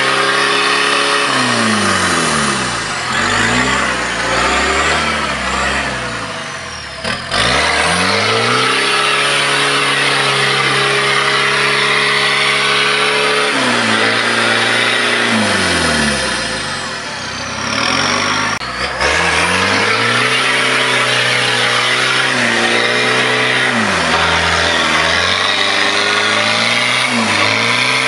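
Toyota LJ73 Land Cruiser's diesel engine revving hard off-road in mud. The revs fall away twice and climb again, with a couple of sharp knocks.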